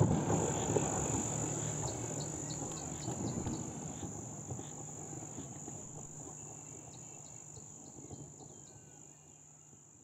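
Night insects chirring in a steady high trill, with two short runs of quick ticking chirps, over a low steady hum; the whole ambience fades out gradually.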